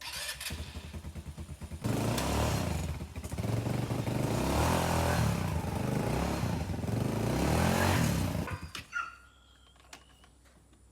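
ATV engine running, first with a pulsing low beat, then louder about two seconds in as it speeds up, its pitch rising and falling with the throttle. The engine sound drops away suddenly about nine seconds in.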